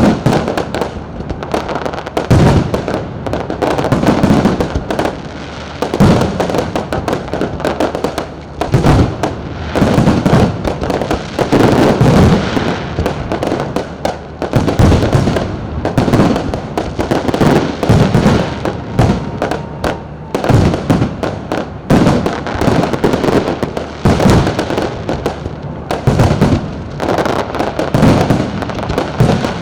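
Fireworks display going off continuously: dense, overlapping bangs and crackling bursts, one after another with no pause.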